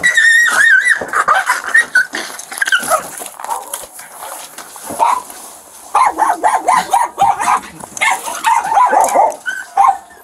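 Feral dog yelping and barking: a high wavering whine right at the start, scattered yelps, then a rapid run of barks from about six seconds in.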